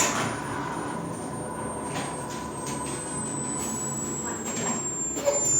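Hearing-test tone: a thin, very high-pitched pure tone gliding slowly downward and growing louder toward the end, over a steady background hiss with a few soft knocks.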